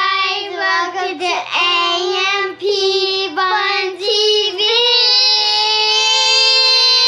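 Children singing a short tune, the notes changing quickly at first, then one long held note from about four seconds in that slides slightly upward at the end.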